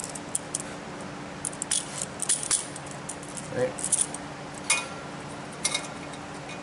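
A new axle bearing for a Ford 8.8-inch rear end handled at the axle housing: scattered light metallic clinks and rattles, one ringing briefly a little after the middle.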